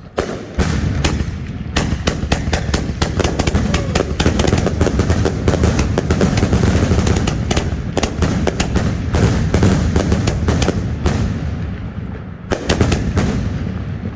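Mortal Instruments 50-shot peanut cake firework in a rapid, near-continuous barrage: small shells launching and going off in double breaks, bang after bang, thinning out toward the end.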